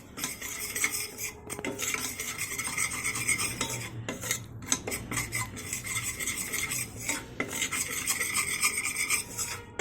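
A pan of gram flour and poppy seeds roasting in ghee being stirred and scraped with a utensil: continuous scraping with small clinks against the pan, broken by a few brief pauses.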